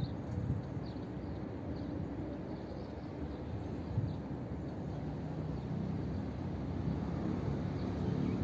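Outdoor background: a steady low rumble with short, high, falling bird chirps about once a second.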